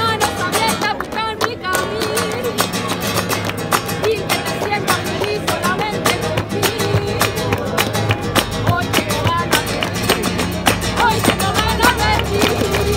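Live flamenco played on the street: a Spanish acoustic guitar strummed and plucked, a man singing in long wavering lines, and hand clapping in time.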